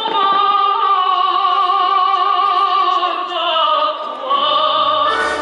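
Operatic singing with orchestral accompaniment: a long held note that slowly sinks in pitch over about four seconds, then a new phrase begins near the end.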